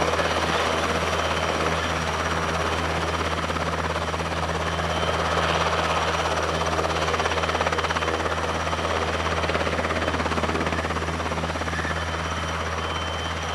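NHIndustries NH90 twin-turboshaft helicopter running on the ground with its rotors turning: a steady low rotor drone under a continuous turbine rush and a thin high whine, holding even as it taxis.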